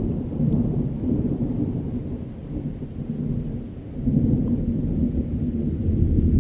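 Thunder in a rainstorm: a long, low rolling rumble that swells again about four seconds in, with rain falling.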